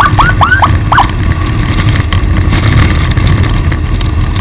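Heavy road and wind rumble from a moving escort vehicle, with a quick run of short chirps at the start and then three rising-and-falling chirps within the first second.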